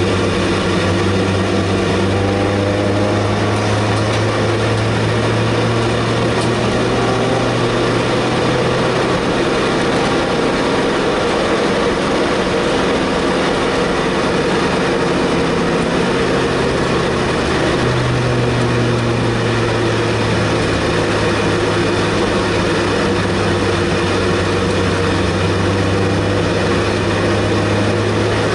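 Race car's engine heard from inside the cockpit, holding steady moderate revs while cruising under the safety car, with road and wind noise beneath. Its note steps up slightly about two-thirds of the way through.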